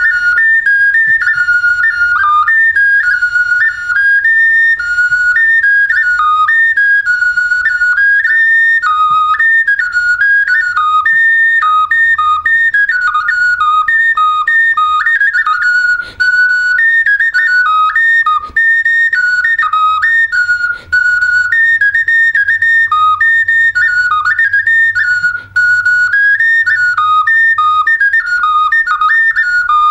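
Clay bird whistle (svistulka) with two finger holes played as a quick rhythmic dance tune, one whistling note at a time hopping among its three notes. A few short gaps for breath break the tune, and it ends on its lowest note.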